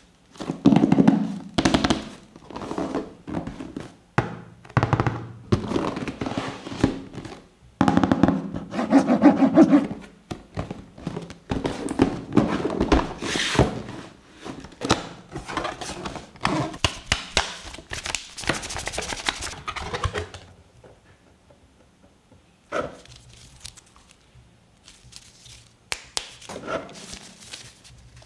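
Unpacking a camera box: cardboard sliding, scraping and knocking in irregular bursts as the box is turned and opened. Quieter rustling and a few clicks follow about twenty seconds in as the wrapped contents are lifted out.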